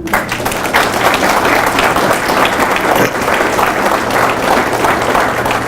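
Audience applauding: dense clapping from a crowd that breaks out at once and holds steady, stopping as speech resumes.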